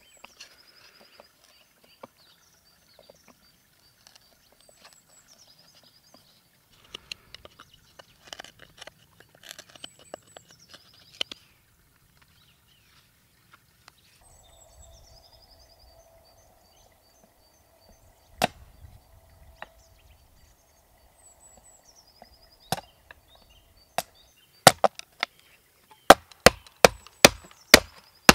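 Songbirds singing in short falling trills, over faint scraping and tapping of hand woodworking. Sharp wooden strikes come now and then, then a quick run of about three a second near the end, chopping into wood.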